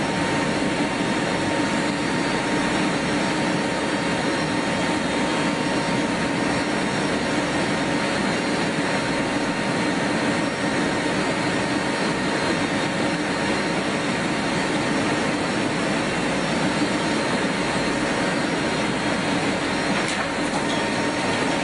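Steady engine noise: an even roar with a few constant tones on top, holding the same level throughout.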